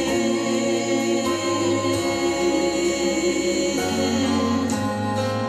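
The close of a gospel song: sung voices holding notes over sustained chords, with the bass moving to a new note a few times.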